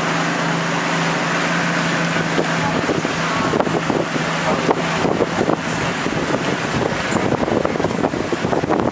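A boat's engine runs steadily under heavy wind noise on the microphone. About halfway through, the engine tone fades and irregular crackling gusts and splashes take over.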